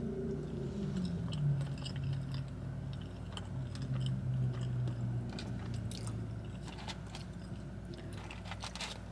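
A person chewing a mouthful of burger and fries close to the microphone, with scattered wet crackles and clicks. A low hummed 'mmm' through closed lips runs under the chewing for the first five seconds or so, then stops.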